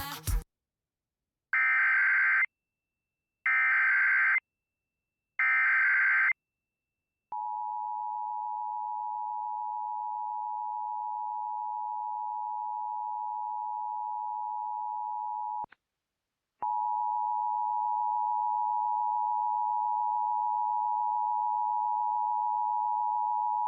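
Emergency Alert System header: three identical bursts of harsh, buzzing digital SAME data, each about a second long, followed by the EAS two-tone attention signal. The attention signal is a steady tone held about eight seconds, then briefly cut off and sounding again for about eight more seconds, announcing a Tornado Watch.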